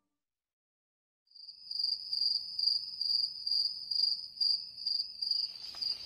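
Cricket-like insect chirping: a high trill pulsing about twice a second, starting after a second of silence. A rushing noise swells in near the end.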